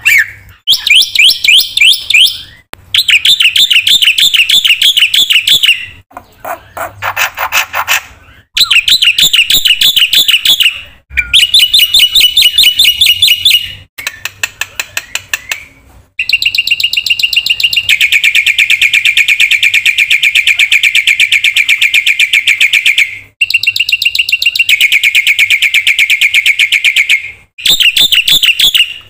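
Black-winged starling (jalak putih) singing loudly in bursts of rapid repeated trilled notes with short pauses between, and one long unbroken trill of about seven seconds midway.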